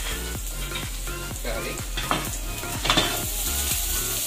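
Chopped onion sizzling in hot oil in a frying pan while it is stirred and tossed, a utensil scraping and knocking against the pan, with the sharpest knocks about three seconds in. A steady low hum runs underneath.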